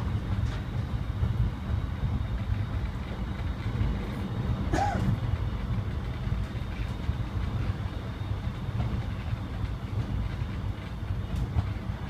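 Interior of an Alstom X'Trapolis electric multiple unit running at speed, close to 100 km/h: a steady low rumble of wheels and running gear through the carriage. A brief high squeak rises and falls about halfway through.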